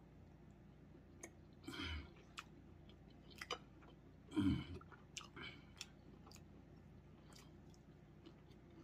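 A person chewing a mouthful of steak, with soft clicks and smacks now and then and a few louder ones about two, three and a half and four and a half seconds in.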